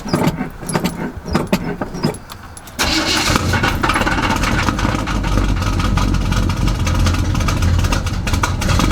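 Squarebody GMC truck engine with an oversized camshaft being cranked by the starter and catching about three seconds in, then running loud and steady on a cold start with the throttle held open.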